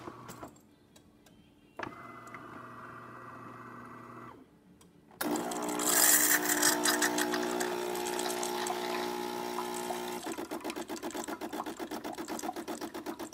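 DeLonghi Magnifica super-automatic espresso machine dispensing hot water. After a short low hum, its vibration pump starts suddenly about five seconds in with a hiss of water spurting into a steel pitcher, then settles into a rapid, even pulsing buzz.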